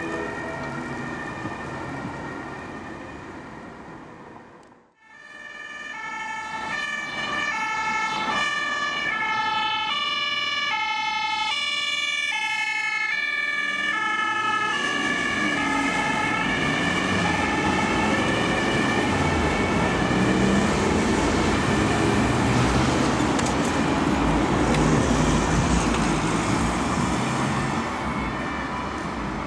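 German two-tone emergency vehicle siren (Martinshorn), alternating between a high and a low tone, with a brief break about five seconds in. After about fourteen seconds the siren fades away under steady road traffic and engine noise, which grows louder toward the end.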